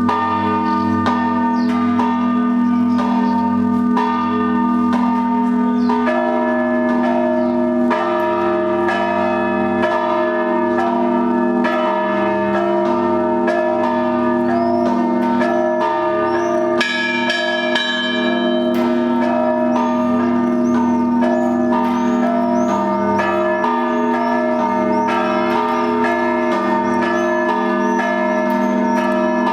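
Russian Orthodox monastery bells rung together: quick repeated strokes on smaller bells over the long, steady hum of the larger bells.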